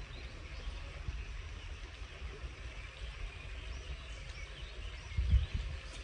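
Pond-side outdoor ambience: a low wind rumble on the microphone, with a stronger gust about five seconds in, and birds chirping faintly.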